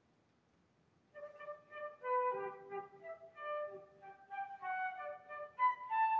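Concert flute starts playing a melody about a second in, after near silence: a single line of held notes moving up and down.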